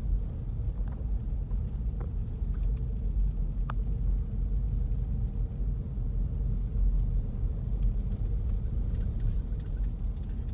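Steady low rumble of a car driving slowly, heard from inside the cabin, with a couple of faint clicks.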